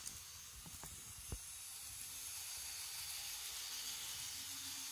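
N-gauge KATO KiHa 82 model train running on its track: a faint steady hiss with a low hum that grows slightly louder after about two seconds, and a small click about a second in.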